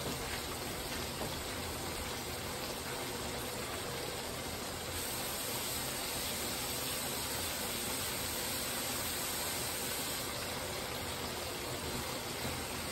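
Steady hiss of hot oil in a deep fryer with fish frying in it, rising slightly about five seconds in.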